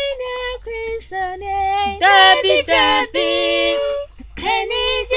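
Unaccompanied gospel singing by a woman and two girls. Held notes and gliding pitches, with voices joining in harmony partway through.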